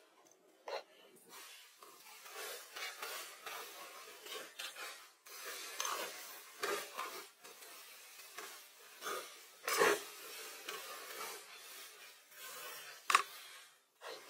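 Irregular rustling and rubbing as a sleeping bag and blankets are handled and spread out, with a few sharp knocks, the loudest about ten seconds in.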